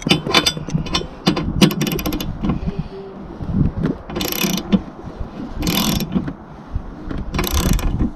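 Socket ratchet wrench clicking in about five short runs as it turns a bolt on a solar panel mounting rail.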